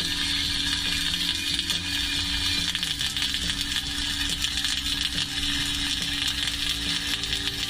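Flux-cored arc welding (FCAW, method 136) on steel plate: the arc crackles steadily with spatter as a horizontal (2G) cap pass is run. A steady hum sits underneath.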